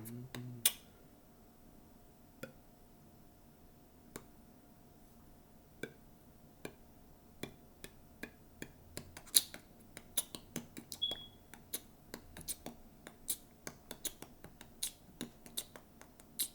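Scattered clicks and taps of a computer keyboard and mouse, sparse at first and coming quicker from about nine seconds in, over a faint steady hum.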